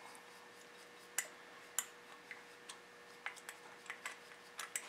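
Faint, irregular small clicks of a screwdriver backing out the terminal screws of a plastic lamp socket.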